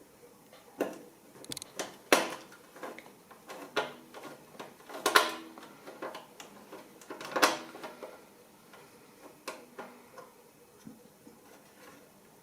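Irregular clicks and taps of a precision screwdriver working small screws out of an SSD mount in a PC case, with a few louder metallic knocks.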